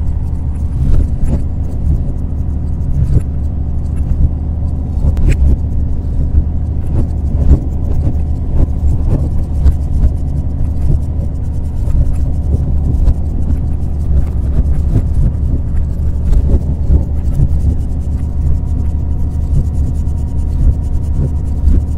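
Train running along the rails, heard from inside the locomotive cab: a steady low rumble and engine drone, with irregular knocks and rattles from the wheels and cab.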